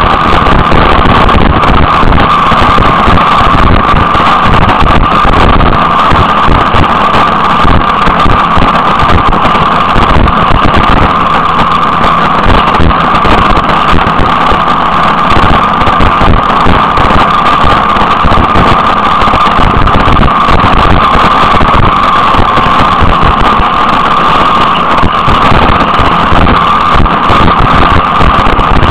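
Loud, steady wind and engine noise from a vehicle cruising at road speed, with wind buffeting the microphone and a constant high drone running through it.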